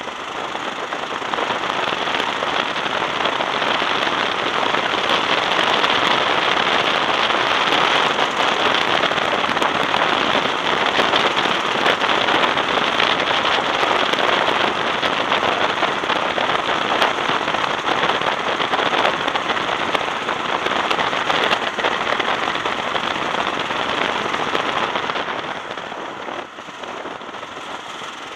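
Go-kart engine running hard on a track, heard close from the driver's seat as a dense, raspy buzz. It eases off about 25 seconds in as the kart slows into a corner.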